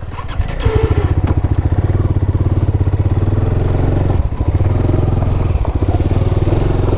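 Motorcycle engine running steadily at low revs, with a fast even firing beat; it gets louder about half a second in and briefly drops around four seconds in.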